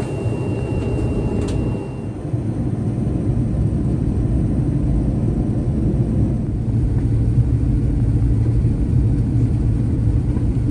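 Airbus A350-900's Rolls-Royce Trent XWB engines and airflow heard from inside the cabin: a steady low rumble that swells slightly a couple of seconds in and eases near the end.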